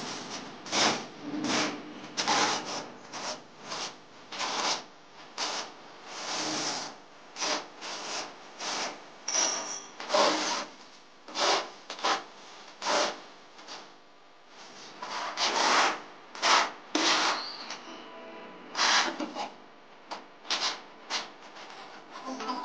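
Notched trowel scraping and combing cement tile adhesive onto a wall, in many short, uneven strokes, roughly one or two a second.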